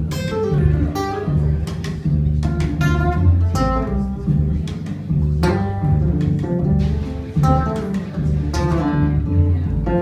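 Live band music: an upright double bass plucking a walking low line under a strummed and picked acoustic guitar, with no singing.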